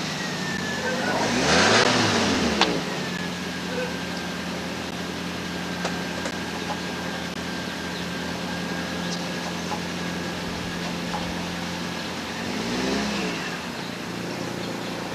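A car drives past on the street about two seconds in, followed by a sharp click; another car passes near the end. A steady low hum runs underneath.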